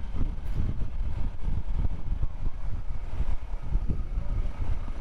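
Wind buffeting the microphone of an action camera on a moving motorcycle, a heavy, uneven low rumble with the engine running beneath it.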